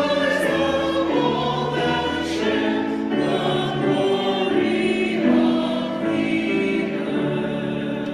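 A congregation singing a hymn in many voices, on a recording. The sound begins to fade right at the end.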